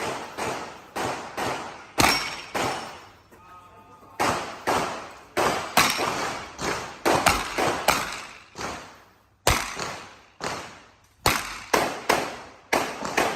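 Handgun shots fired in rapid strings, about two a second, each with a short ringing tail, broken by brief pauses of a second or so.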